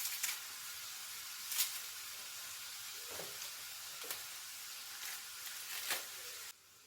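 Food sizzling in a frying pan, with a few clicks and scrapes of a utensil stirring it. The sizzle stops abruptly near the end.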